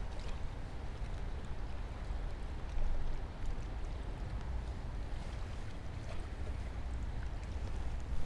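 Wind buffeting the microphone, a steady low rumble, with faint scattered ticks and a brief gust about three seconds in.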